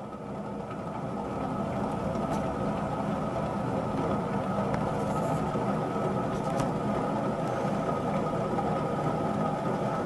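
Moss Caribbean Breeze 36-inch industrial ceiling fan running with a steady hum and a rough, loud bearing noise, the sign of worn motor bearings. It grows louder over the first couple of seconds as it speeds up after being switched up from low, then runs evenly.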